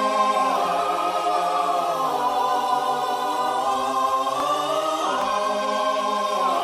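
A choir singing held chords, the voices moving together to a new chord about every two seconds.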